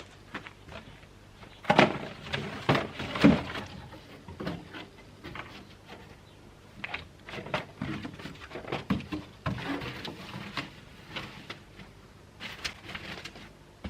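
Irregular knocks, clicks and scrapes of things being handled and set down by hand, with the loudest knocks about two and three seconds in.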